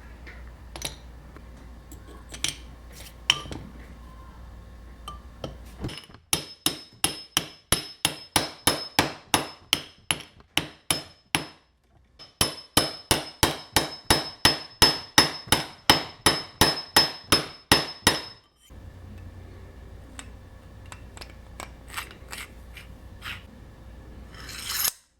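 Quick, even hammer blows on metal, about three to four a second, each with a bright ring, in two runs of several seconds. Scattered light knocks and clinks come before and after, and a short swelling noise comes near the end.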